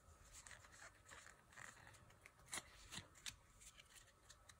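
Faint handling of Pokémon trading cards fresh from a booster pack: soft rustling with a few light card snaps, the clearest a little past the middle.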